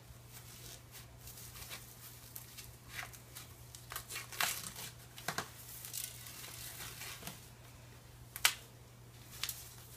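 White paper wrapping being pulled and torn off a muffler, crinkling and rustling in irregular bursts, with a sharp crackle about eight and a half seconds in. A steady low hum runs underneath.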